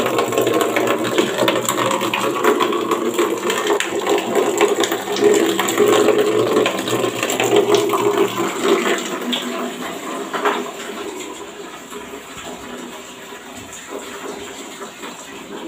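Tap water pouring in a thin stream into a part-filled plastic basin, splashing steadily; the sound drops off and grows quieter after about nine seconds.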